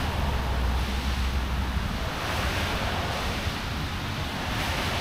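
A steady rushing hiss outdoors, with wind buffeting the microphone as a low rumble for about the first two seconds.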